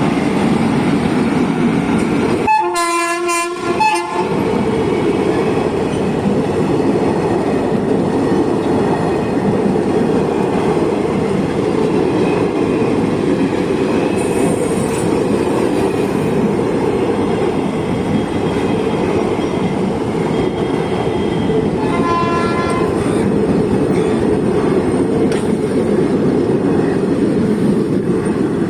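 Indian Railways WAP-4 electric locomotive sounding its multi-tone horn for about a second and a half a few seconds in, and again more faintly and briefly later on, over the steady rumble and clatter of its passenger train rolling past.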